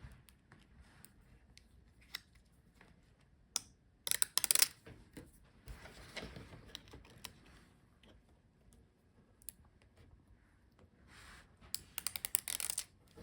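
Hands working with adhesive strips and laptop screen parts: two bursts of quick crackling clicks, about four seconds in and again near the end, with scattered single clicks between.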